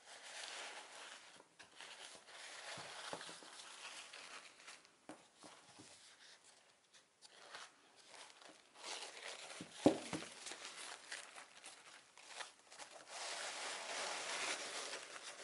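White tissue paper crinkling and rustling as it is unfolded from around a package, in uneven crackles. One sharp tap about ten seconds in.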